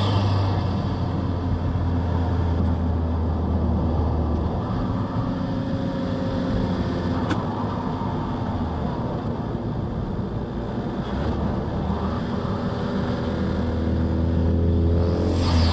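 Turbocharged 2.0 EcoBoost four-cylinder of a 2017 Ford Escape, heard loud through an open airbox with a drop-in filter. It runs steadily after a hard pull, the turbo whistle falling away at the start, with a single click about halfway. Near the end the engine builds again and the whistle rises.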